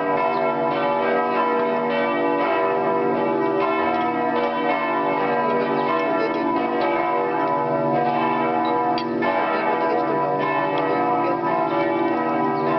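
Church bells of the Nikolaikirche in Leipzig ringing together in a full peal, several bells overlapping in continuous, steady ringing.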